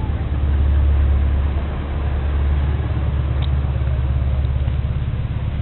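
Scania 164L 580's 16-litre V8 diesel engine running with a steady, deep rumble.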